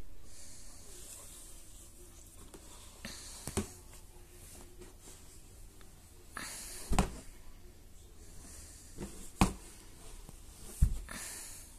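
Hand handling a hollow plastic baby bathtub: scuffing and rubbing on the plastic, with several sharp plastic knocks as the tub is moved.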